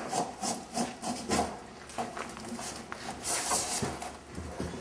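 Electrical wire being pushed by hand up through the wire chase of a structural insulated panel, rubbing and scraping against the panel in uneven strokes, with handling noises.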